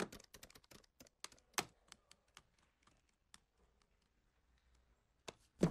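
Calculator keys being tapped: a quick run of small clicks that thins out to scattered ones after about two and a half seconds.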